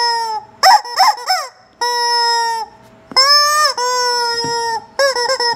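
Yellow rubber screaming-chicken toy squeezed by hand, letting out a series of loud, pitched honking squawks: a few short ones that rise in pitch, then longer drawn-out ones, then a quick run of short squawks near the end.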